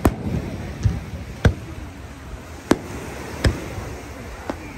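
Aerial fireworks shells bursting overhead: four loud bangs about a second apart, with a few fainter pops between them.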